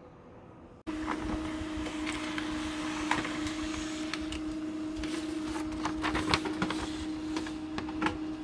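Canon LBP113W laser printer running as it feeds and prints a page: a steady mechanical hum with a low tone and scattered clicks. It starts abruptly about a second in.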